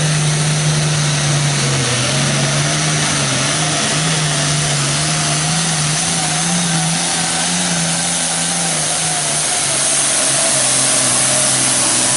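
Pulling tractor's diesel engine running hard under full load as it drags a weight-transfer sled, a steady loud drone whose pitch wavers slightly.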